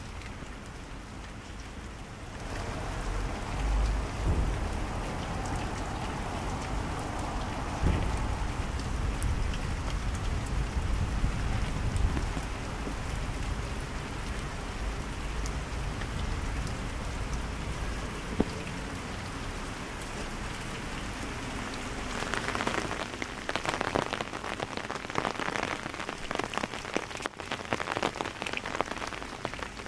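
Steady rain falling and pattering on stone and paving, with a low rumble through the first half. About three-quarters through the patter turns denser and more crackly.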